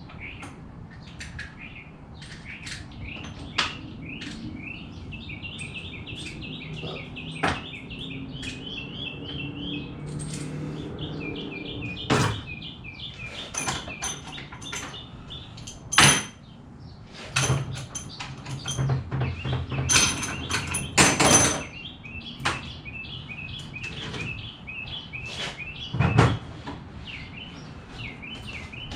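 Metal clinks and clanks of hand tools and engine parts being handled on an engine block, with several sharp knocks. Runs of rapid high-pitched chirping come twice, once over several seconds early on and again near the end.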